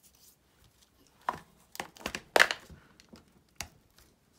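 Handling noise at a craft table: a few scattered clicks and knocks as a plastic ink pad case is opened and a wooden rubber stamp is picked up. The loudest is a sharp knock about halfway through.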